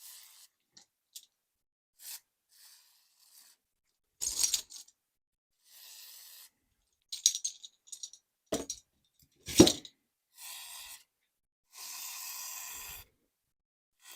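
Metal tools and engine parts being handled on a workbench: scattered clinks and knocks, two of them sharper about two-thirds of the way in, then two short hissing noises near the end.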